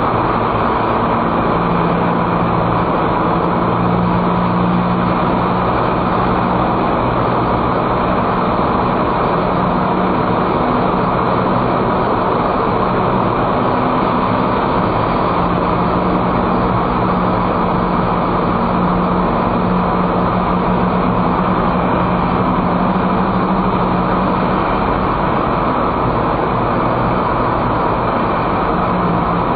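Steady tyre and road noise of a car driving through a road tunnel, heard from inside the cabin, with a low engine hum that fades in and out.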